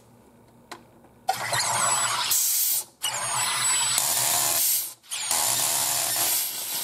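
Aarke Carbonator soda maker injecting CO2 into a bottle of water as its lever is pulled: three loud hissing bursts of gas, each one to two seconds long, starting about a second in.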